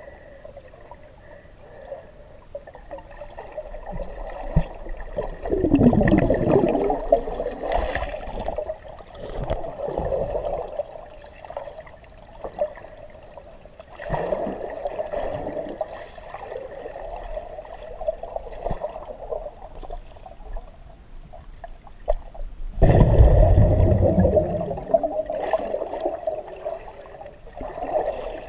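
Underwater river sound picked up through a GoPro's waterproof housing: a muffled, continuous gurgling rush of moving water. It swells louder and deeper about six seconds in and again near the end.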